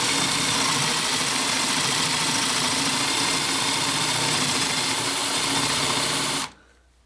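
Corded electric drill with a 5/8-inch paddle bit running at a steady speed while boring a hole in wood, then shutting off suddenly about six and a half seconds in.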